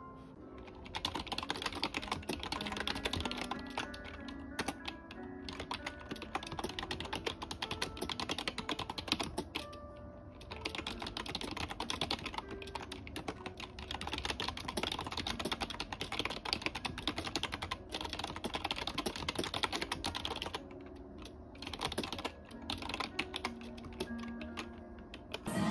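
Fast typing on a retro typewriter-style wireless keyboard with round keycaps: a dense, continuous clatter of key clicks that stops briefly a few times, with soft background music underneath.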